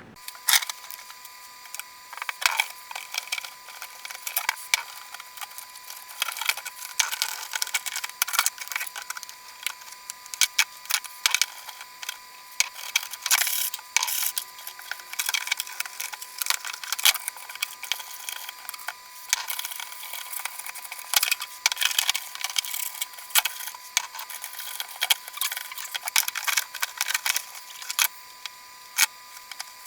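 Irregular scraping, scrubbing and clicking of hand cleaning work on motorcycle parts, in quick uneven strokes over a faint steady high tone.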